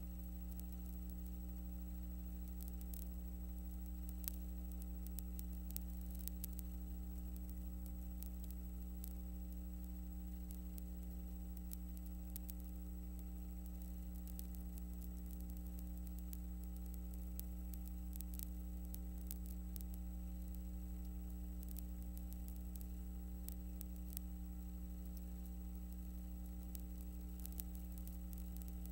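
Steady electrical hum with faint scattered crackle and static: the empty sound track of a silent film transfer.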